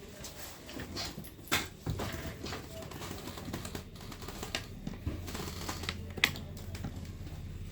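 Irregular light clicks and taps of small electronic parts and tools being handled on a workbench. A low steady hum comes in about two-thirds of the way through.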